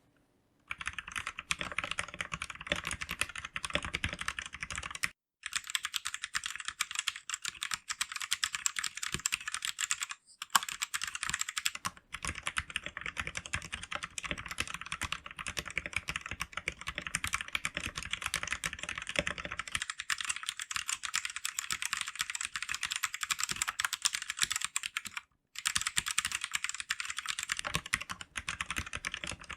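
Typing on an RK71 71-key mechanical keyboard: a fast, steady run of key clicks, stopping only briefly a few times.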